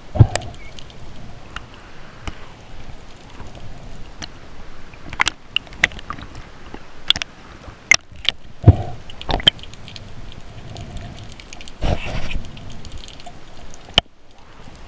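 Water sloshing and gurgling around a diver's action camera in shallow sea water, with scattered sharp clicks and a few dull knocks, the loudest about a second in, near the middle and about twelve seconds in.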